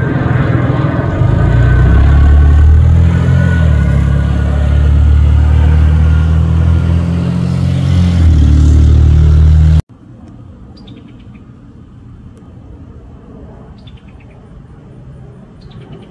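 Jet engines of a FedEx Boeing 767 freighter passing low overhead with its landing gear down: a loud, deep rumble with a faint whine above it, cut off abruptly just under ten seconds in. After the cut comes a much quieter rumble with a few short, falling bird chirps.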